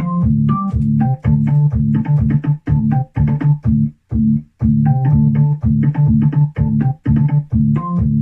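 E-Mu Proteus 1 sample-based sound module playing a keyboard patch with an organ-like tone, in a quick rhythmic riff of short staccato chords with brief gaps between them.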